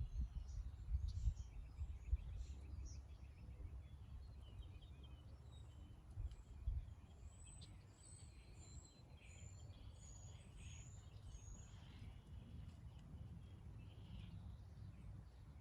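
Faint outdoor ambience of small birds chirping and calling, with many short high chirps and whistles, busiest in the middle. Underneath runs a low rumble, with a few low thumps near the start and about six seconds in.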